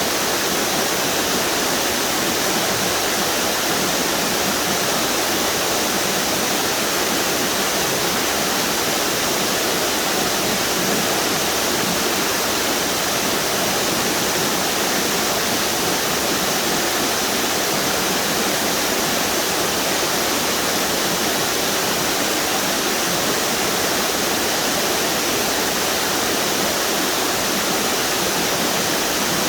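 A string of river waterfalls rushing steadily: an even, unbroken roar of falling water.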